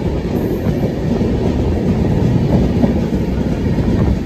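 Passenger train running along the track: a steady, loud rumble of wheels on the rails.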